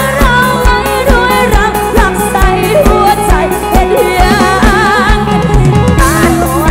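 Live band playing through a concert PA: a singer's wavering, ornamented melody over a steady drum beat of about two strokes a second.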